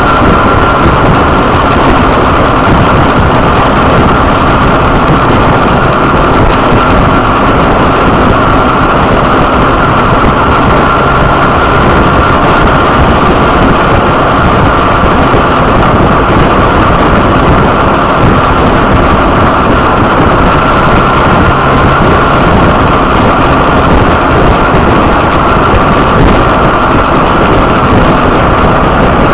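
Motorcycle cruising at a steady speed: engine running under a constant, loud rush of wind over the microphone.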